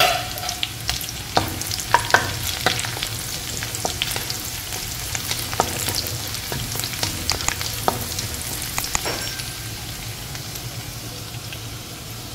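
Chopped garlic, green chillies and dried red chillies sizzling in hot oil, with a steady hiss. A spatula scrapes and taps against the pan many times as they are stirred, less often in the last few seconds.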